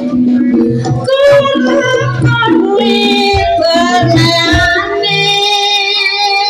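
Live Javanese jaranan music: a high singing voice over gamelan accompaniment, with a repeating pattern of low pitched notes and drum strokes. The voice settles into long held notes for the last second or so.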